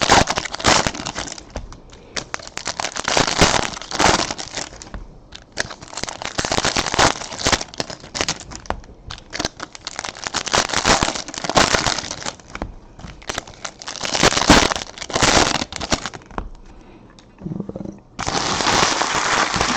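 Trading-card pack wrappers crinkling as they are handled and torn open, in irregular bursts with a brief lull near the end.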